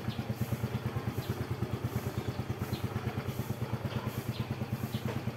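Yamaha Mio M3 scooter's single-cylinder engine idling, an even low beat of about a dozen pulses a second.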